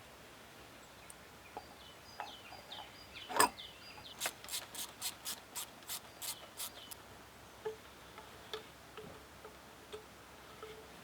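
Ratchet wrench being worked in short strokes: a sharp click about three seconds in, then a run of about ten even clicks at about four a second, with scattered lighter clicks either side.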